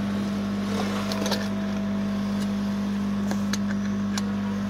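Juki industrial sewing machine's motor, switched on and running with a steady hum, with a few scattered light clicks from handling at the machine.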